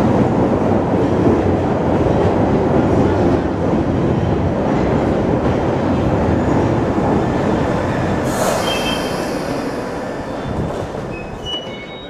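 Jubilee line tube train (1996 stock) running alongside the platform, a loud, dense rumble of wheels and motors that slowly dies away. A short hiss comes about eight seconds in, and brief high squeals come near the end.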